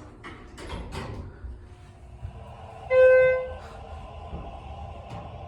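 Schindler elevator's electronic chime: one loud, clear beep about three seconds in, over a steady hum of the car moving, with a few clicks near the start.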